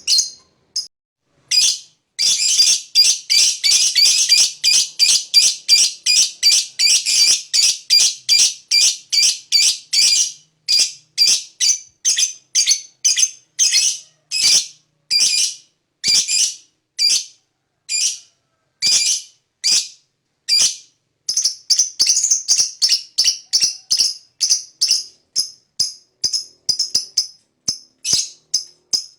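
Lovebird (Agapornis) ngekek: a long, shrill chattering run of rapid short calls, about four a second, slowing to spaced calls midway and speeding up again near the end.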